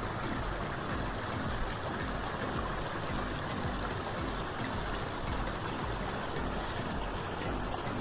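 Steady rush of water, with an uneven low rumble underneath.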